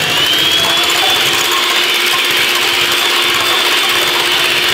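Electric hand mixer running steadily, its beaters whirring through a thin batter of eggs, oil and water in a stainless steel bowl, with a high motor whine that rises slightly as it comes up to speed and then holds. The motor sounds strained, as if about to die, though the cook says it isn't.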